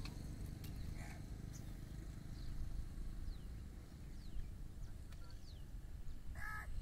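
Rural outdoor ambience: a steady low rumble with faint, short chirps of small birds, and a crow cawing once near the end.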